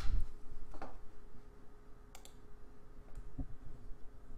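Low room tone with a faint steady hum and a few scattered faint clicks.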